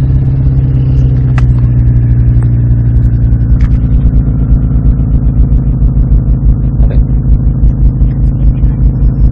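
Subaru WRX STI (VAB) TC380's turbocharged EJ20 flat-four idling through its aftermarket quad-tip exhaust, a loud, steady low rumble. About halfway through it settles into an uneven pulsing beat of several throbs a second.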